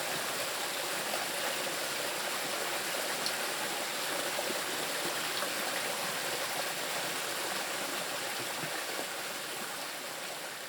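Water rushing over rocks in a small stream, a steady, dense splashing. It begins to fade out near the end.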